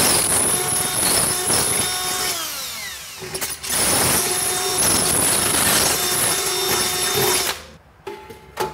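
Cordless drill boring a 3/16-inch hole through a stainless steel shelf, widening a pilot hole. The motor runs steadily, winds down in falling pitch about two and a half seconds in, starts again a second later and stops shortly before the end.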